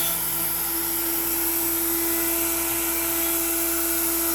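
Makita router spinning a 1/4-inch upcut bit at about 18,000 rpm, a steady whine with hiss, as the CNC feeds it through pine at 300 inches per minute and it still throws good chips.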